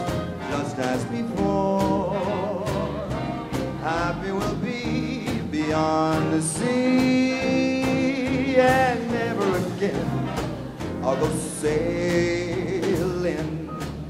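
Swing big band playing an instrumental passage: horns holding notes with vibrato over piano, upright bass and drums keeping a steady dance beat.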